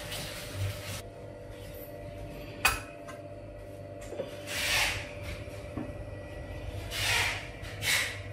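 A stainless steel cooking pot clinks once, sharply, about two and a half seconds in, followed later by three soft swishing noises over a faint steady hum.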